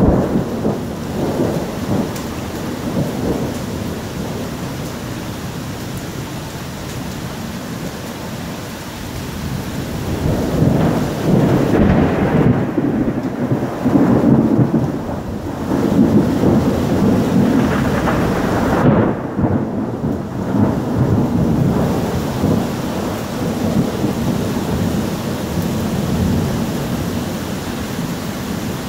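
Heavy rain falling steadily, with rolling thunder that builds about a third of the way in, rumbles deep and loud for some ten seconds, then dies back to the rain.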